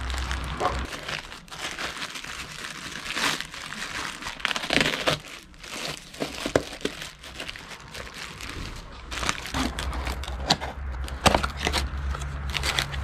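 Packaging crumpling, crackling and tearing as a parcel is unwrapped, in quick irregular rustles.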